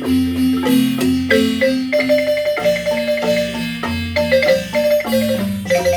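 Marimba music: a melody held in rapid tremolo rolls over lower bass notes that change about every half second.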